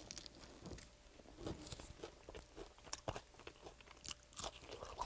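A person biting into and chewing sauce-coated fried chicken close to the microphone, with faint, scattered crunches.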